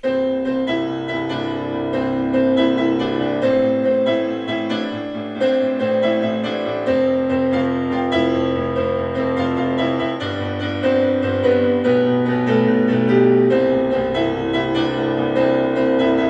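Intro music on piano: a steady run of struck notes over held chords that change every few seconds.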